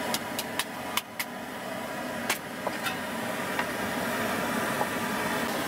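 Steady rushing of a camp stove burner under a pot, with a few light clinks of metal cookware, most of them in the first three seconds.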